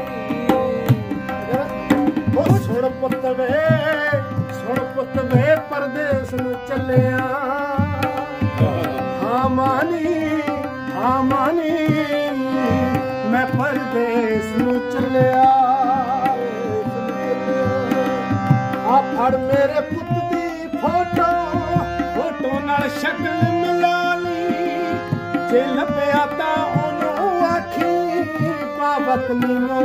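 Tabla drums played in a lively steady rhythm under held harmonium chords, with a man singing a Punjabi folk melody over them.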